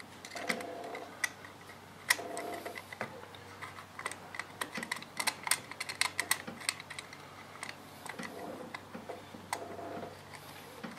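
Irregular small clicks and taps of a screwdriver and small screws worked against a circuit board and the metal inverter housing of a Tesla drive unit, as the board is positioned for its first screws. The clicks come thickest from about four to seven seconds in.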